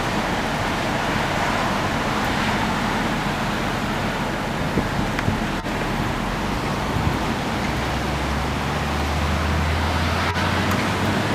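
Steady roar of storm wind and surf, with a low hum joining about seven seconds in.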